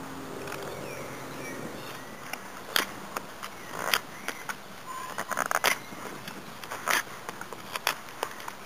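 Small friction-folding knife with a carbon-steel blade whittling a wooden tent peg: irregular sharp cuts and scrapes of the blade through the wood, with a quick run of strokes about five seconds in.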